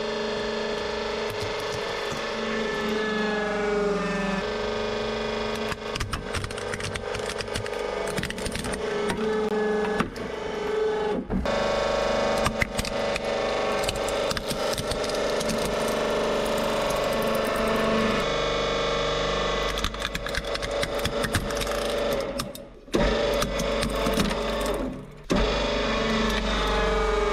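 Hydraulic press running with a steady motor and pump hum and whine while the ram crushes a wristwatch and plastic toys, with scattered cracks and crunches as they break.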